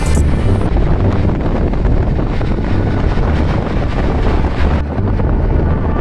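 Wind buffeting the microphone: a loud, steady rushing noise with a deep, unsteady rumble underneath.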